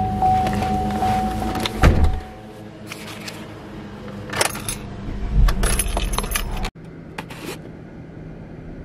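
A car door shutting with a thump about two seconds in, then a set of car keys jangling as the key goes into the ignition. A sudden cut near the end leaves a quieter steady hum.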